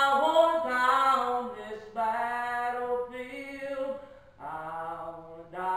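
A man and a woman singing a gospel song together, holding long notes of about a second each with short breaks between them.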